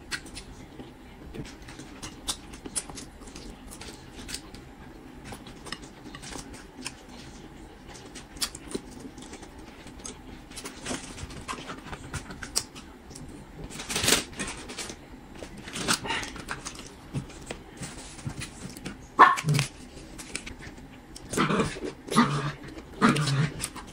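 Close-miked eating: chewing and small clicks of chopsticks against the dishes, with a louder crackly burst about 14 seconds in. Near the end come several short, low vocal bursts.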